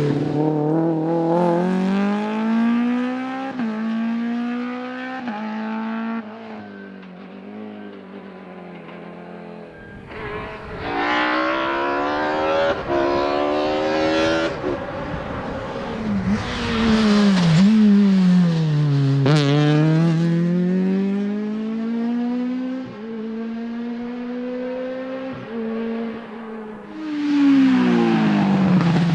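Rally car engines at full throttle on a special stage. The engine note climbs and drops in steps as the cars shift up through the gears, lifts and falls away, then rises again as another car comes through, loud again about ten seconds in and once more near the end.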